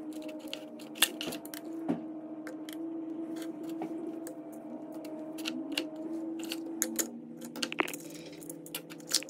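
Small copper wire scraps and a plastic parts tray being handled on a wooden bench and set on a digital kitchen scale: a run of small sharp clicks and clinks, with louder knocks about one and two seconds in.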